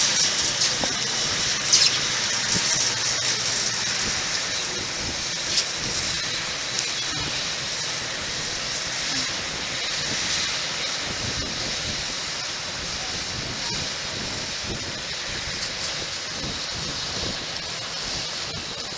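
A steady, even hiss of outdoor noise, with a faint low hum for the first few seconds.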